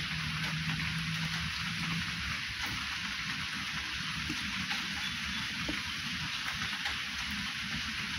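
A steady, even hiss like falling rain, with a faint low hum for about the first two seconds.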